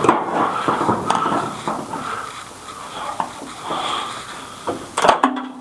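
Old, hardened rubber windshield seal scuffing and squeaking as the glass is forced out of it, with scattered knocks and a sharper cluster of sounds near the end. The seal is so sun-baked that it has stuck to the glass and body.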